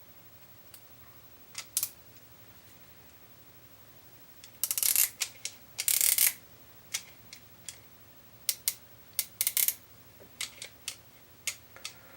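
A nylon cable tie being pulled tight: two quick rattling runs of its teeth through the lock about five and six seconds in, with scattered sharp clicks from the cable tie tool before and after.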